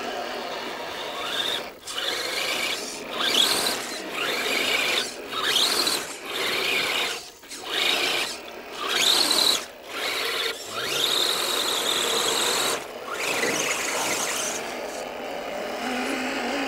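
Electric motors and gearboxes of radio-controlled scale off-road trucks whining in short bursts of throttle as they drive through a mud puddle, each burst rising in pitch and cutting off suddenly, about a dozen times, with one longer steady stretch past the middle.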